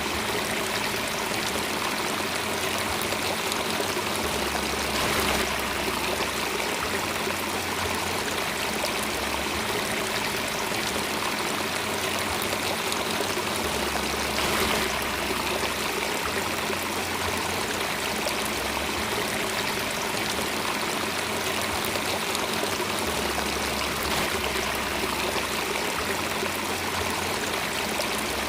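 Steady rush of running water, like a stream, with a low hum underneath that shifts in pitch every few seconds.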